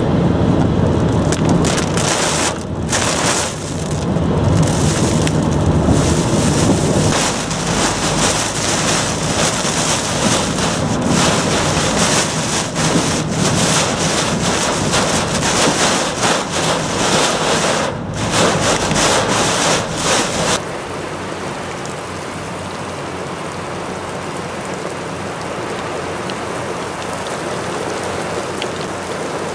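Heavy rain beating on a moving vehicle's windshield and body, a loud dense hiss with a low rumble under it for the first several seconds. About two-thirds of the way in it cuts abruptly to a quieter, even hiss of heavy rain falling on pavement.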